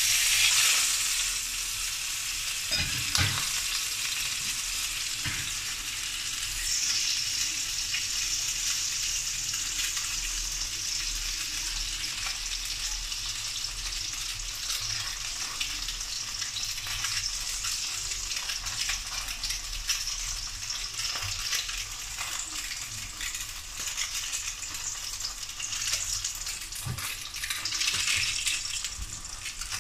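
Threadfin fish fillet sizzling in hot oil in a wok: the sizzle starts suddenly as the fillet goes in, then runs as a steady hiss with scattered crackles.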